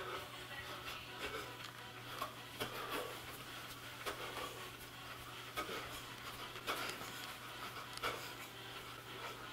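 A person breathing hard while doing a dance workout, with irregular thuds of feet landing on the floor.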